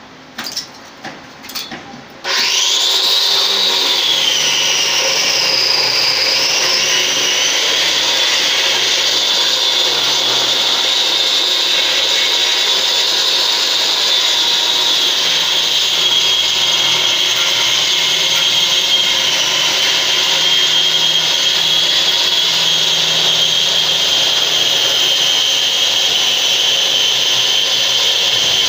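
Electric wall chaser (wall grooving machine) starting up about two seconds in and cutting a groove into a block wall: a high whine that wavers as it bites in, then holds steady. A few knocks before it starts.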